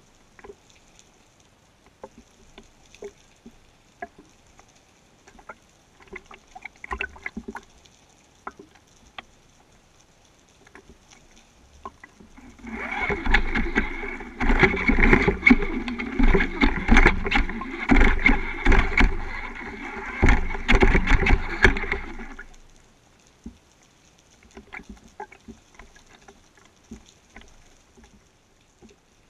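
Sound heard underwater: faint scattered clicks, and for about ten seconds in the middle a loud, pulsing rumble with steady tones in it.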